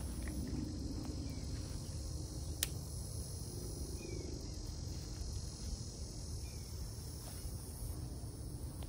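Steady chorus of insects in the summer grass, with a low rumble underneath and a single sharp click about two and a half seconds in.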